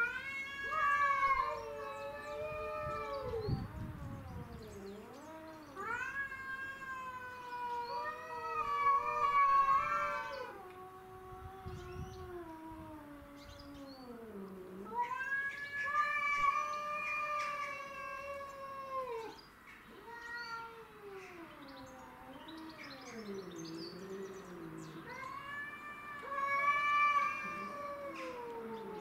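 Domestic cats caterwauling in a fight standoff: a series of long, drawn-out yowls, each lasting several seconds and wavering and sliding up and down in pitch, following one after another.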